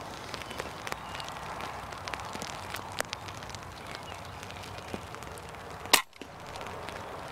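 A single shot from a .22 Theoben MFR pre-charged air rifle about six seconds in: one sharp crack. It is fired over light rain, heard as scattered small ticks and taps on the hide.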